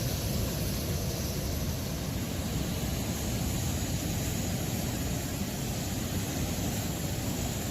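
Sea surf at a beach, an unbroken steady rush of noise with a deep low rumble.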